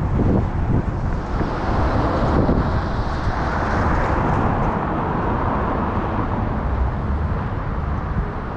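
Street traffic: a vehicle passes close by, its tyre and engine noise swelling over a couple of seconds and fading away, over a steady low rumble.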